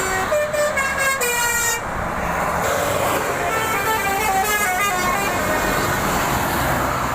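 Bus's basuri telolet horn playing two runs of quick stepped notes like a short tune, the second starting about three seconds in, over traffic noise.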